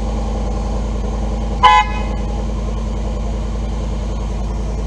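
2021 Ford F-150's V8 idling steadily, with one short toot of the horn about a second and a half in: the horn being checked through the newly fitted steering wheel.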